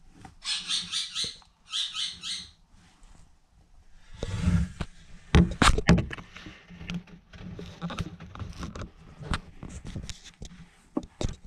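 A mouse held in a savannah monitor's jaws squeaking in two quick bursts of rapid high-pitched pulses during the first couple of seconds: distress squeaks as it is being killed. From about four seconds in come scattered knocks and rustling.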